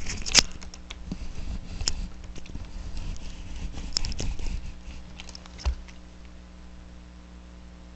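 Camera stand being lowered by hand: scattered clicks, rattles and knocks of its parts being handled, with a heavier knock near six seconds in, over a steady low hum.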